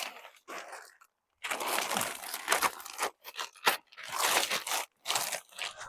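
Plastic pond-liner sheet crinkling and rustling as it is handled, in several irregular bursts.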